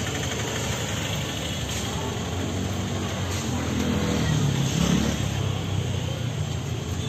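Street traffic: steady motor-vehicle rumble, with an engine passing close and swelling loudest about four to five seconds in.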